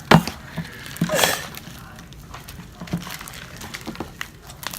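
Homemade slime being kneaded and stirred by hand in a bowl: irregular sticky squelches and small clicks, with a sharp knock just after the start and a louder burst about a second in.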